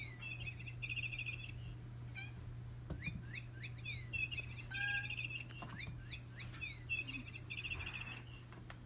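High bird-like chirps and rapid trills repeating in short bursts every second or so, over a steady low hum.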